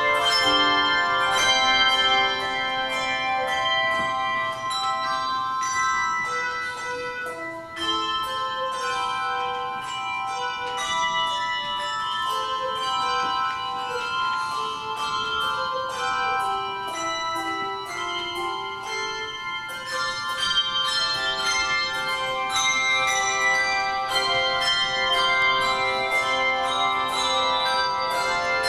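Handbell choir ringing a processional piece: many struck bell tones overlap and ring on, with a melody moving through the lower bells.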